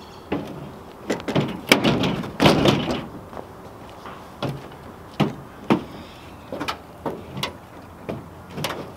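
Knocks and clanks of a pit bike being lifted onto a pickup truck's tailgate and rack and shoved into place: a loud cluster of bangs about two seconds in, then scattered single knocks.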